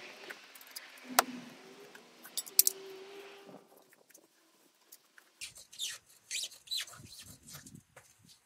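Hands handling and pulling upholstery fabric over a car door panel. A soft hiss lasts the first three and a half seconds, with two sharp clicks, the louder about two and a half seconds in. The last three seconds bring scattered scratchy rustling of the fabric.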